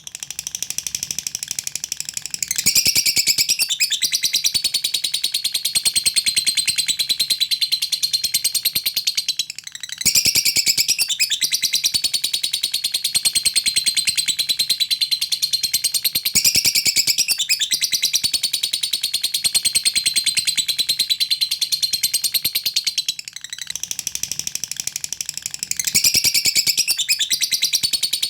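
Lovebird singing a long continuous 'ngekek' trill, a rapid high chatter of fast ticking notes, broken off briefly twice, about ten seconds in and again past the twenty-second mark.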